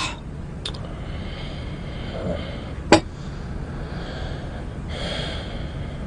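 Soft breathing over a low, steady background of room noise, with a single sharp click about three seconds in.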